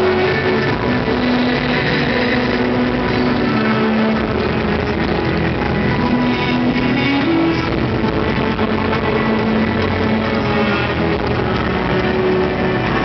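Loud, steady music.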